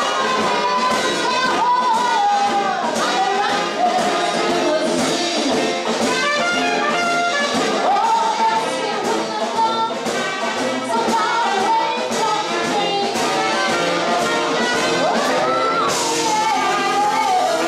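Live small-band jazz-blues: a woman sings into a microphone, with sliding, bent notes, over acoustic guitar accompaniment.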